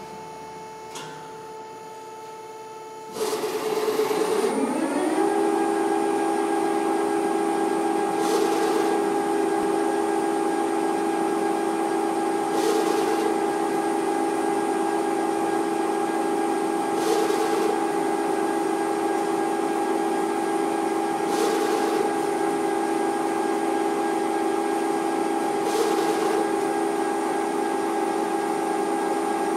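CNC machine spindle spinning up with a rising whine about three seconds in, then running at a steady pitch, with a brief noisy surge about every four seconds through a threading cycle.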